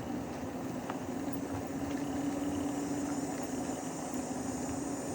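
Electric bike's motor humming at a steady pitch while riding, over a steady rushing noise.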